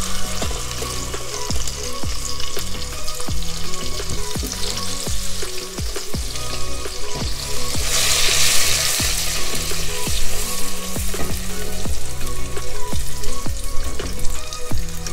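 Diced onions and scotch bonnet peppers sizzling in hot olive oil in a pot as they are stirred with a silicone spatula. The sizzle swells about eight seconds in. Background music with a steady beat plays underneath.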